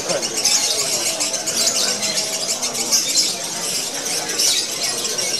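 Lovebird singing a long, unbroken run of rapid high chattering, the nonstop 'konslet' style of song judged at Indonesian bird contests.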